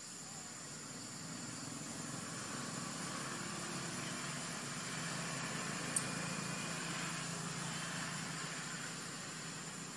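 A motor engine running steadily, its low hum building after about a second and easing off near the end, over a constant high insect whine. One sharp click about six seconds in.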